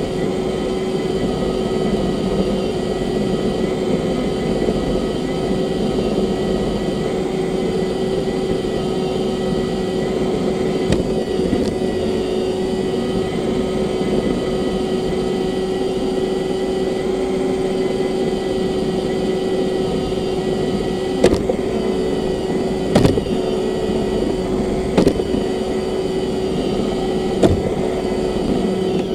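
Roomba robot vacuum running: a steady motor hum with a constant pitched whine and brush noise. A few sharp knocks come in the second half.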